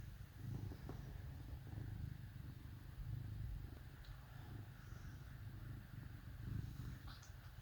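Domestic cat purring: a faint low rumble that swells and fades with each breath, about every second and a half.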